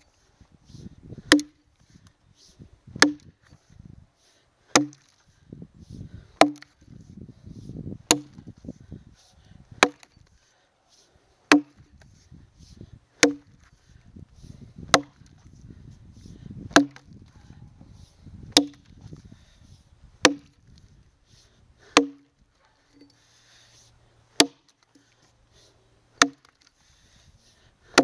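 A Phantom Bevel Jersey-pattern axe chopping into a log while bucking it: single sharp strokes at a steady rhythm, about one every second and a half to two seconds, spacing out a little near the end.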